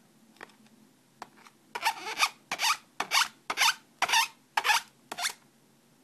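A green-cheeked conure's beak rubbing and scraping back and forth on a fabric mousepad: a few faint clicks, then from nearly two seconds in about seven quick rasping strokes, roughly two a second.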